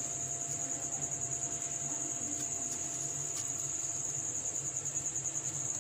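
A steady high-pitched pulsing trill, with a few faint clicks of a small knife cutting the cap out of a peeled round gourd (tinda).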